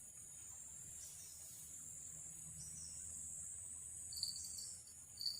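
Steady high-pitched chorus of crickets, with two brief high-pitched chirps about four and five seconds in.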